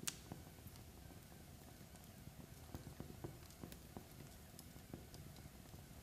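Log fire crackling faintly: irregular small pops and snaps over a low, soft rumble, with one sharper snap right at the start.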